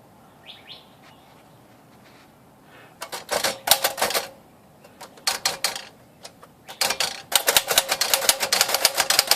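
Keys of a 1935 Royal Model O manual typewriter being struck: a few short runs of typing about three seconds in, then a fast, steady run of key strikes over the last two seconds.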